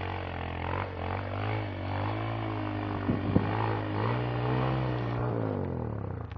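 Sport ATV engine running at low revs, its pitch drifting gently up and down, with a couple of sharp clicks about three seconds in.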